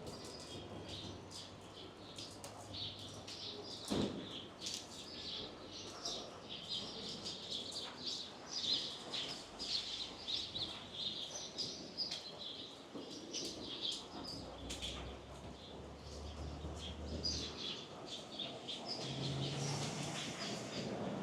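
A flock of small birds chirping, many quick overlapping chirps, with a single sharp knock about four seconds in.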